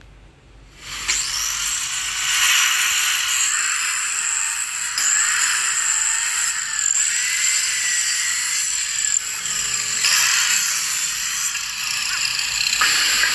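Miter saw running with a high whine as it cuts a row of slots across stacked boards. The motor's pitch wavers about once a second.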